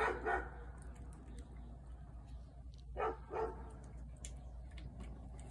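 A dog barking in two short double barks, the second pair about three seconds after the first.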